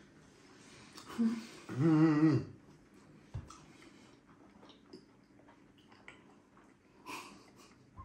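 A person's wavering, pitched moan lasting just under a second, about two seconds in, just after a short grunt. Later there is a soft thump and a breathy sniff near the end.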